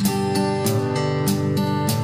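Background music with a strummed acoustic guitar and a steady beat.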